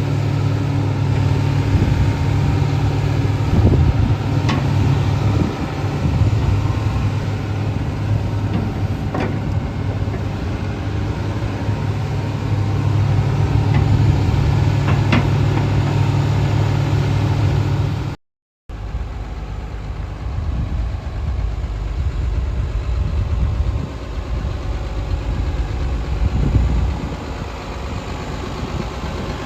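Diesel engine of a Komatsu PC300LC-7 hydraulic excavator running at idle, a steady low hum with a few sharp clicks. About eighteen seconds in, the sound cuts out for a moment and comes back as a lower, rougher rumble.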